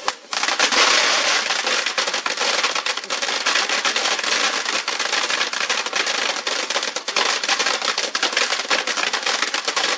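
Ground fountain firework burning: a loud, dense, steady crackling hiss that starts a fraction of a second in.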